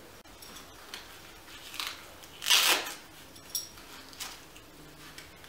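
Rustling and light clicking of a dog harness's straps and buckle fittings being handled and adjusted on the dog, with one louder brushing whoosh about two and a half seconds in.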